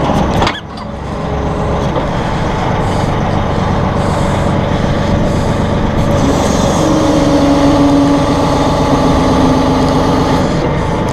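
Massey Ferguson 1742 compact tractor's diesel engine running while its hydraulics work the CB75 backhoe. A steady tone comes in about six seconds in and holds until near the end.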